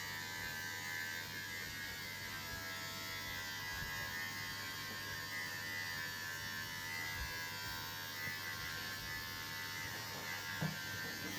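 Electric hair clippers running with a steady buzz, with one short knock near the end.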